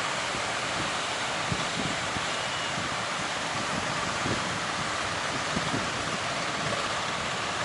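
Steady rush of breaking surf, with wind buffeting the microphone in short low thumps.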